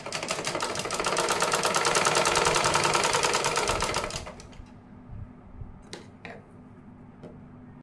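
Black Usha sewing machine stitching a border strip onto fabric: a fast, even chatter of stitches that builds over the first second, runs steadily, then stops about four seconds in, followed by a few light clicks.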